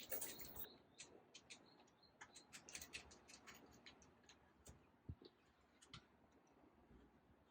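Faint, irregular clicks and taps of metal hardware being handled as a fabric storm panel's top corner is fastened onto a wall anchor.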